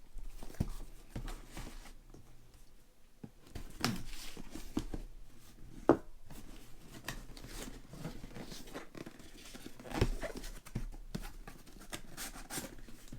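A mail-order package being opened by hand: packaging tearing and rustling, with scattered sharp clicks and knocks, the loudest about six seconds in and another about ten seconds in.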